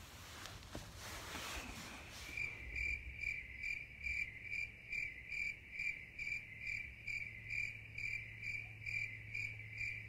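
A cricket chirping in an even rhythm, about two and a half chirps a second, starting about two seconds in, over a faint steady low hum. Before the chirping there is only a soft hiss.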